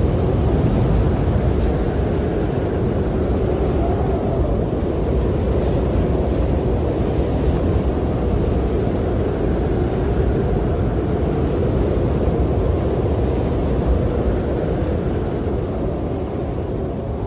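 Howling snowstorm wind: a steady low rushing with a moaning pitch that slowly rises and falls.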